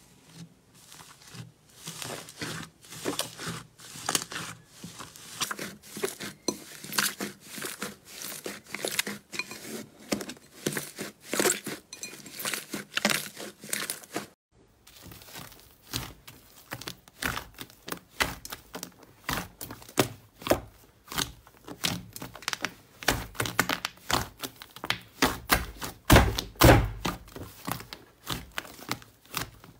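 Hands squeezing and pressing slime: a dense run of sticky crackles, clicks and squelches, with a brief gap about halfway through and a few heavier, deeper squelches near the end.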